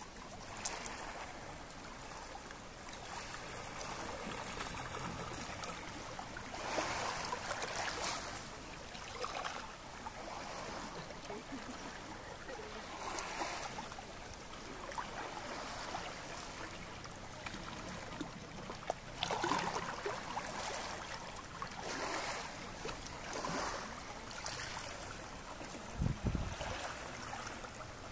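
Small waves lapping and washing over shallow pebbles at the water's edge, swelling softly every few seconds. A brief low thump near the end.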